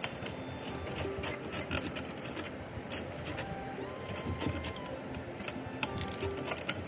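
Peeled raw green mango being grated on a stainless steel flat grater: a run of quick, irregular rasping strokes, over soft background music.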